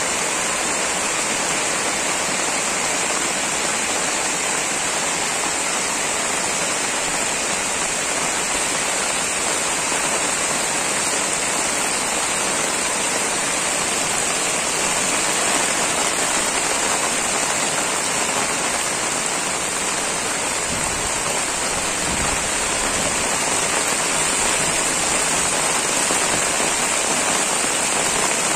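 Heavy rain pouring onto a flooded street: a steady, unbroken hiss of rain hitting standing water and pavement.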